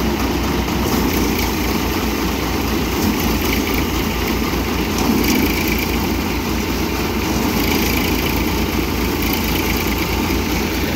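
Tractor-driven Dashmesh paddy thresher running steadily as paddy bundles are fed through it, with the Massey Ferguson tractor's engine running underneath as a low, even pulsing.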